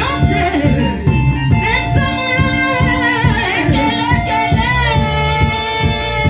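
Church worship music: voices singing over instrumental accompaniment with a steady beat.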